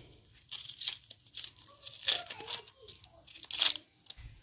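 A small kitchen knife scraping and tearing the dry, papery skin off an onion, in about six short crackly strokes.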